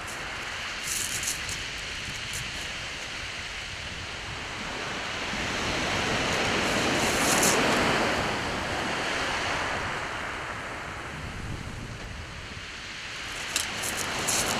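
Surf washing on a shingle beach, a wave swelling up and breaking about halfway through, then easing off.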